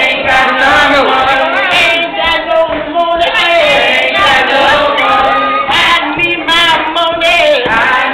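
A group of male and female voices singing together without instruments.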